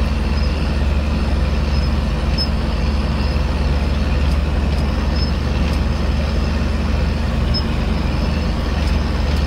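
Big Ford tractor's diesel engine running steadily on the road, heard from inside the cab as an even, low drone.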